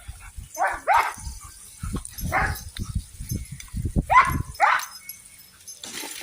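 Belgian Malinois giving five short high barks, two close together, one alone, then two more, with low knocking and thumping sounds between them.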